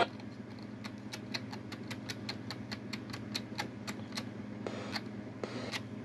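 Rapid, evenly spaced clicking of an Eton emergency radio's tuning control being stepped through the FM band, about six clicks a second for some three seconds, then a couple of slower clicks near the end, over a steady low hum.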